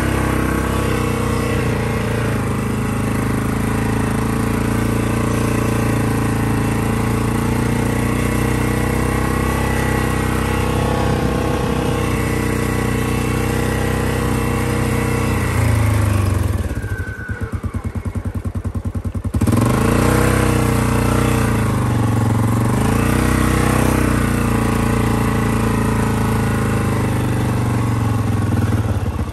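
ATV engine running steadily as the quad is ridden up a dark mountain track. A little past the middle it drops to a slow idle for about three seconds, then revs up again with a few rises and falls in pitch before settling back to a steady run.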